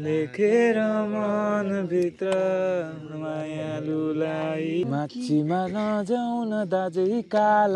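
A man singing unaccompanied, holding long wavering notes in phrases that break off every second or two.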